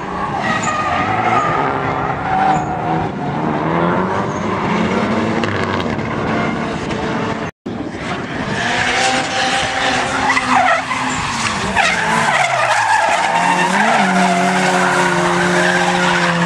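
Nissan S15 drift car and a second drift car running in tandem: engines revving up and down with tyres screeching as they slide. The sound drops out for an instant a little past halfway, and near the end the engines are held steady at high revs.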